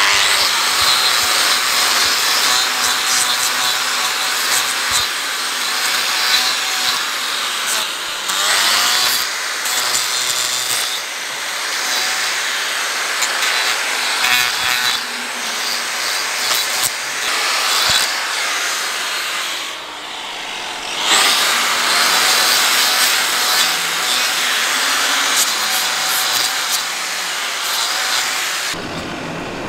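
Angle grinder with a toothed hoof-trimming disc cutting and shaving the horn of a cow's hoof: a harsh grinding rasp over the motor's steady whine. It eases off briefly about two-thirds of the way through and stops just before the end.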